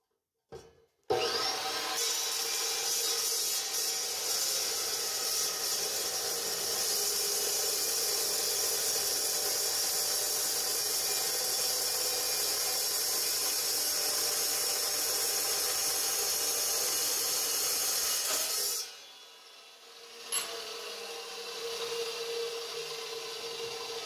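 Dry-cut metal chop saw with a toothed blade starting up about a second in and cutting through steel, a loud steady grinding whine. It stops sharply about three-quarters of the way through, leaving a quieter hum.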